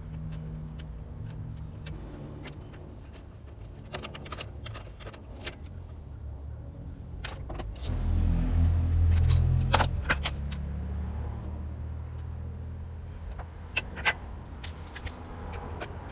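Metal parts and tools clinking and rattling as they are handled, in scattered sharp clicks over a steady low hum; a low rumble swells for a couple of seconds in the middle.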